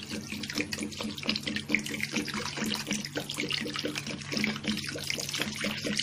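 Water poured from a plastic jug onto fresh chhena (lemon-curdled milk curds) in a cotton straining cloth, splashing steadily as the curds are rinsed to wash out the lemon's sourness.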